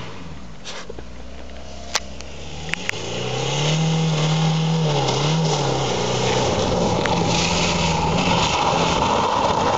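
Peugeot 306 car engine approaching along a dirt track, growing louder from about three seconds in as it comes out of the trees; its note dips briefly around five seconds in and picks up again. Tyre and track noise builds as the car comes close near the end.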